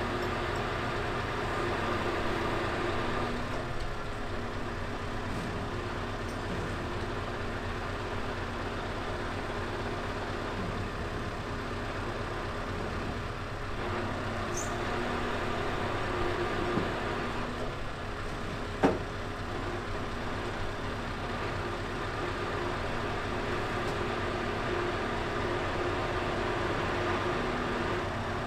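Scania R650 V8 diesel engine running steadily while powering the Copma 1150 loader crane's hydraulics. A single sharp knock sounds about nineteen seconds in.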